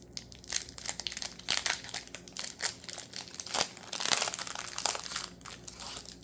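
Crinkling and crackling of a foil Pokémon booster pack wrapper being handled and opened, in irregular bursts of rustle.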